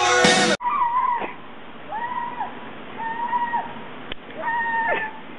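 Rock music cut off suddenly just after the start, then a cat meowing four times, each meow a level note that drops sharply at the end, with a single sharp click between the third and fourth.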